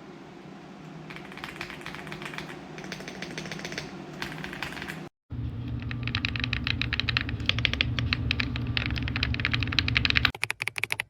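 Fast typing on the AULA F75 Pro mechanical keyboard with its pre-lubed Reaper switches: a dense run of key clicks that cuts out for a moment about five seconds in, then resumes over a steady low hum, thinning into separate taps near the end.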